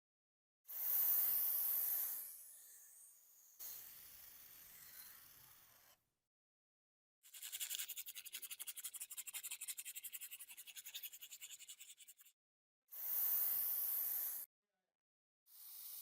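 A brush scrubbing a metal part in short clips, each ending with a sudden cut to silence. The longest clip, in the middle, is a fast, even back-and-forth scrubbing rhythm, as in removing rust and grime.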